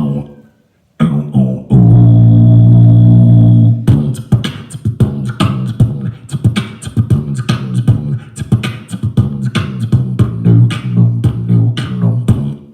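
Beatboxing: a loud, low held note for about two seconds, then a fast, steady beat of mouth-made percussion that runs almost to the end.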